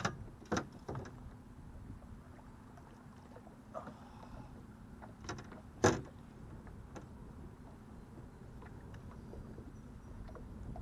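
Knocks and clatters of fishing gear, a landing net and rod, handled against a small aluminum fishing boat: about half a dozen sharp knocks, the loudest about six seconds in, over a low steady rumble.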